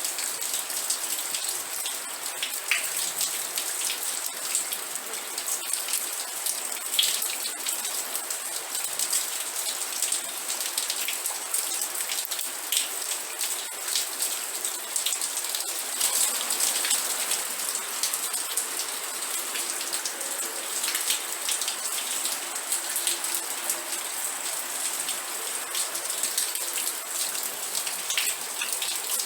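Steady rain falling, with many individual drops tapping a surface close by and a dense hiss over them.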